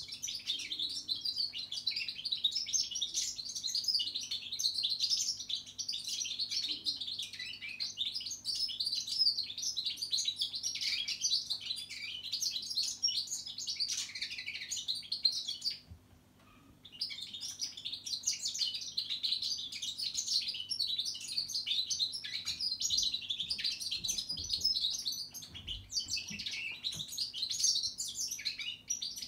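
Goldfinch mule, a goldfinch × canary hybrid, singing a long, rapid twittering song. The song breaks off for about a second just past halfway, then resumes.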